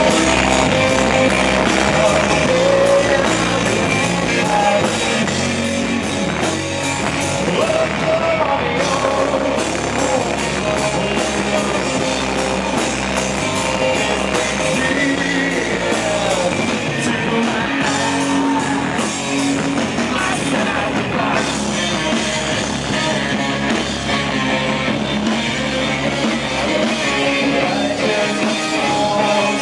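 Live rock band playing loudly with guitar, drums and a singer.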